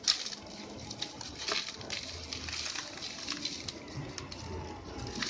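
Crumbly red sand-cement (concrete) lumps being crushed: a sharp crack just after the start, then irregular crunching and crackling.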